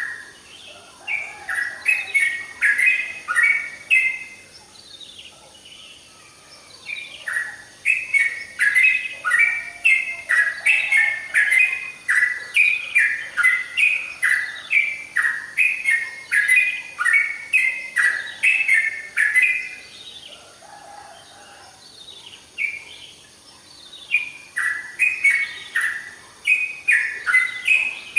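Yellow-vented bulbul (trucukan) singing energetically: fast, bubbling runs of short notes, repeated phrase after phrase. It sings in long bursts, pausing briefly about a quarter of the way in and again about two thirds of the way in.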